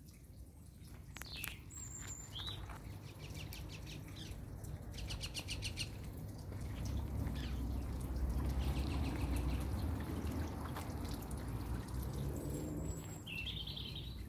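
Garden birds chirping, with scattered short calls and a quick run of rapid notes, over a low rumble that swells in the middle.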